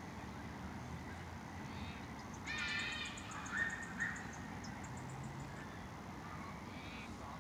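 Birds calling over a faint steady outdoor hiss: a harsh call about two and a half seconds in, then two shorter calls, with a quick series of high ticks running alongside.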